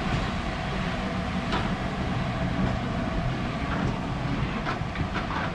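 Passenger coaches of a steam-hauled train rolling past on the rails as it arrives at the station: a steady rumble, with a few short, higher squeaks in the second half.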